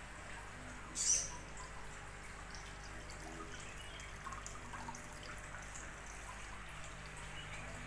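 Faint trickling water over a steady low hum, with one short, high bird chirp about a second in and a few fainter chirps after it.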